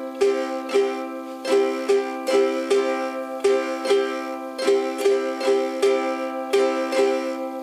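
Ukulele strummed in the calypso strum pattern (down, down, up, up, down, up), repeating evenly on one ringing chord.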